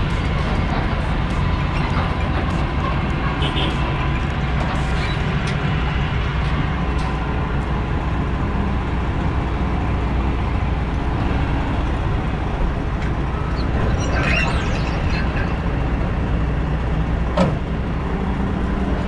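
A vehicle engine running steadily at low revs, with a few faint clicks and one sharp knock near the end.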